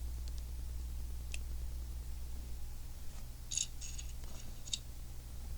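Small plastic Lego pieces being handled: a faint click about a second in, then a handful of short, sharp clicks near the middle, over a steady low hum.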